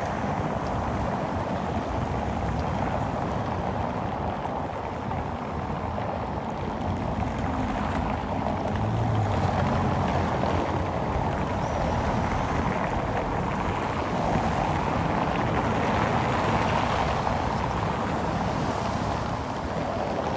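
Steady city street noise: a continuous rushing sound, with a faint low engine hum about halfway through.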